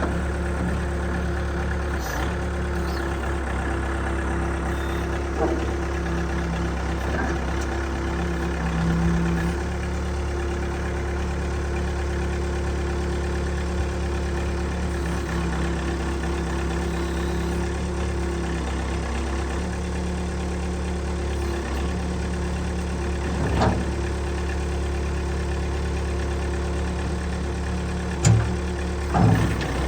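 580D loader backhoe's diesel engine idling steadily, with a few short knocks or clunks near the end.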